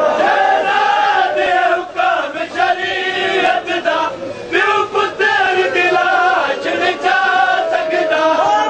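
Men's voices chanting a noha, a Shia lament for Imam Hussain, in long held notes with crowd noise. Short sharp knocks are scattered through.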